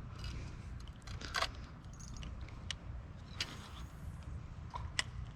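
A few sharp clicks and short light rattles, four or five in all, over a steady low rumble.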